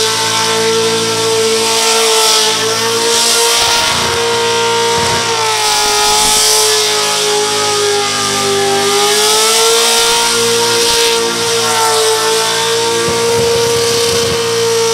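Holden VF Commodore's 6.0-litre V8 held at high revs through a burnout, wheels spinning. The engine note stays high and steady, its pitch wavering slightly with brief dips, over the hiss of the spinning tyres.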